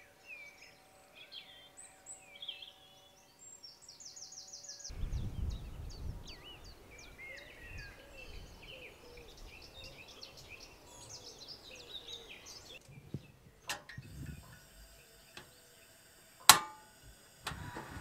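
Several birds singing in the evening, with short chirps and warbled phrases. Later comes a portable butane camping stove: a couple of clicks, the loudest a sharp snap of its piezo igniter, then the burner starting to hiss as it lights near the end.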